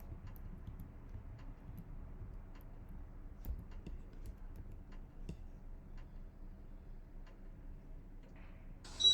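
Casablanca Spirit of Saturn ceiling fan running with a faint steady hum and light, irregular ticking. A high electronic beep starts near the end.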